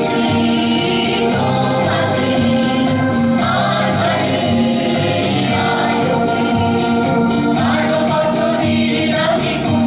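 A song performed with singing over instrumental accompaniment and a steady beat.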